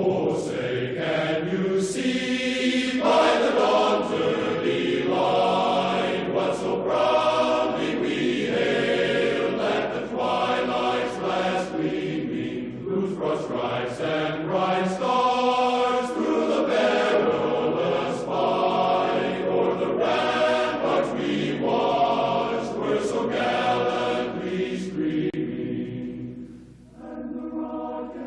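A choir singing a slow national anthem in long held chords that change every second or two. The singing thins out briefly about a second before the end, then swells again.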